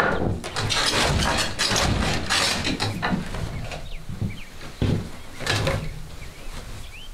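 Wooden treadle loom knocking and creaking as its foot pedals are worked, loudest in the first three seconds and again briefly about five seconds in. Between the knocks it is quieter, with a few short squeaks as wool weft is laid into the warp by hand.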